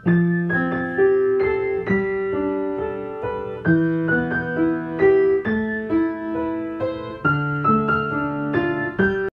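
Background piano music: a gentle tune of struck notes and chords at an even pace.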